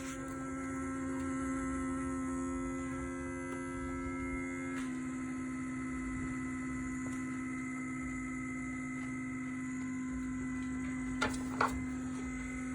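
Steady electrical hum with a whine of several steady tones, from under the driver's side of a 2013 Nissan Altima's hood after the engine has been shut off. Its pitch shifts slightly about five seconds in, and two light clicks come near the end.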